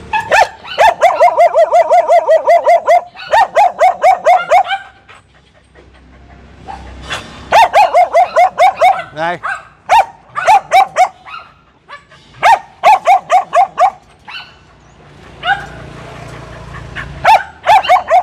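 A dog barking in rapid runs of quick barks, about six a second, each run lasting one to three seconds with short pauses between, and a brief rising whine midway.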